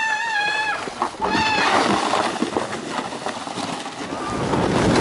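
A high, held, wavering squeal from a person that breaks off about a second in. Then the rough hiss and scrape of a plastic sled sliding over packed snow, growing louder toward the end.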